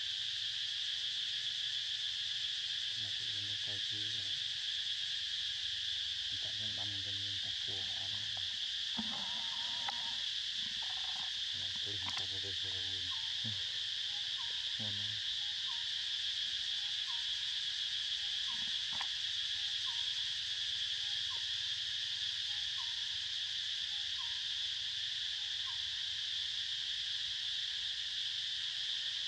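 Insect chorus drones steadily in a high, even hum. There are a few faint, low, broken sounds in the first half, and soft short chirps repeat about every second and a half in the second half.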